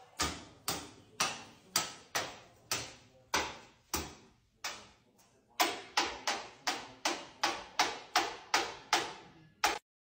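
Small hand bell rung over and over by a white-bellied caique, each strike ringing briefly and dying away. About two rings a second at first, then after a short pause about halfway, a quicker run of about three a second.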